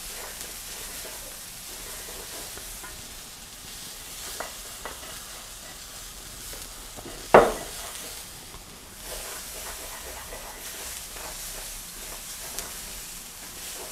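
Onion, green chillies and grated ginger sizzling in a wok as a spatula stirs them, a steady frying hiss with soft scraping. One brief loud sound about halfway through stands out above the sizzle.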